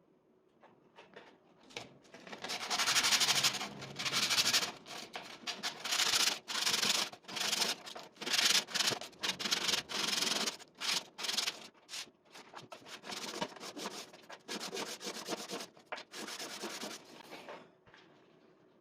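Repeated hand-rubbing strokes, in irregular runs that start about two seconds in and stop near the end, loudest in the first half.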